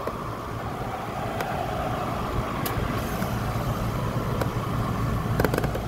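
Steady low mechanical hum, like a nearby engine running, with a few faint short clicks of the controller's push buttons as the days are stepped through, most of them just before the end.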